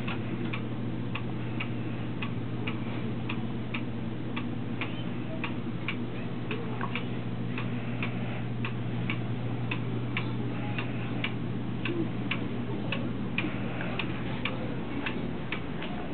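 Steady, even ticking, about three ticks a second, over a constant low hum.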